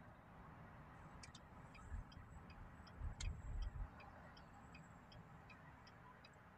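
Car turn-signal indicator clicking steadily, about three ticks a second, faint over low road rumble inside the car's cabin, with a few low thumps about two and three seconds in.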